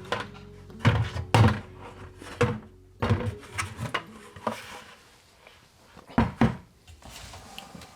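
Scattered knocks and thumps of things being handled in a wooden sink cabinet, about seven in all, the loudest about one and a half seconds and six seconds in.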